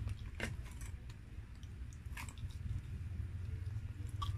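Close-miked chewing and mouth sounds of someone eating fried chicken, with a few sharp wet clicks from the lips and the fingers handling the food.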